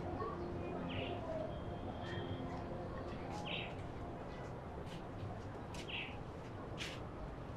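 Quiet outdoor ambience with a bird giving a short chirp about every two and a half seconds, and a few faint light clicks in between.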